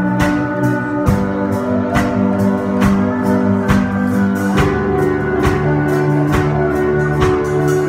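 Live worship band playing an instrumental passage without singing: a steady drum beat, about one strong hit a second, under held keyboard and guitar chords that change about halfway through.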